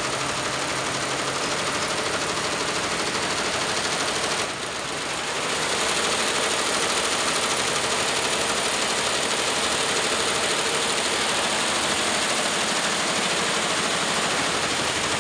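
Multi-head industrial embroidery machine running, its many needle heads stitching together in a fast, steady mechanical rattle. The level dips briefly about four and a half seconds in.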